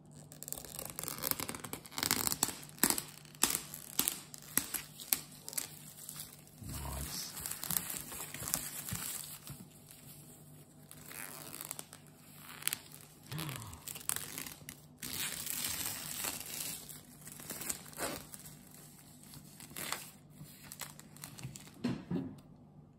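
Plastic shrink-wrap film being torn and peeled off a cardboard box by hand, crinkling and crackling unevenly.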